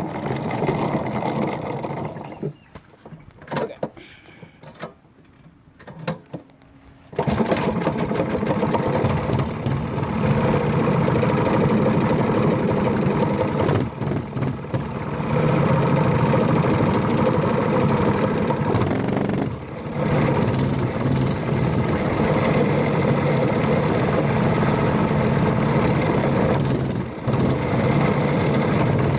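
Mini bike's Predator 212 single-cylinder engine, which starts running abruptly about seven seconds in and then runs loud and steady at high throttle, with three brief dips in revs as the throttle is eased. A few quiet clicks come before it starts.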